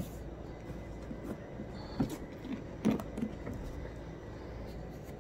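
A rigid cardboard gift box being handled and its lid worked off: a few soft knocks and a click, with faint rubbing of cardboard.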